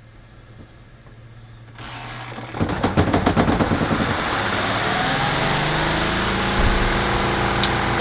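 Kuppet portable washing machine's spin cycle starting up about two seconds in: a burst of loud rattling as the spin basket gets going, then a steady motor whir that rises in pitch as it comes up to speed and holds.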